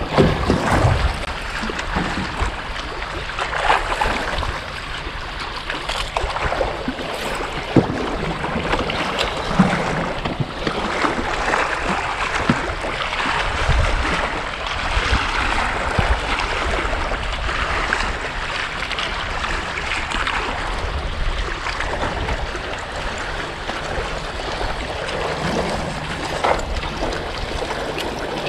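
Wind on the microphone and choppy water slapping against a small metal boat's hull, a steady rushing noise with a few short knocks.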